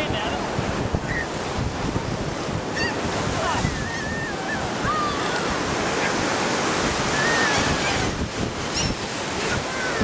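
Surf washing on the beach with wind buffeting the microphone, and birds giving several short, thin calls over it.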